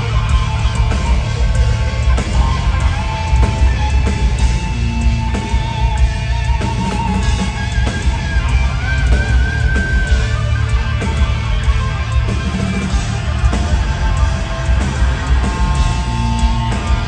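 Heavy metal band playing live: distorted electric guitars, bass and drums, with a heavy low end. A lead line of wavering held notes sits on top in the middle stretch.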